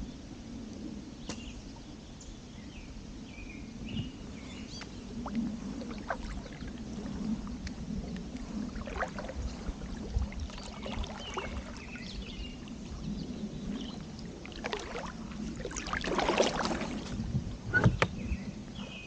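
Kayak paddle strokes: the blades dip and splash, water drips and trickles between strokes, and the splashing is loudest a little before the end.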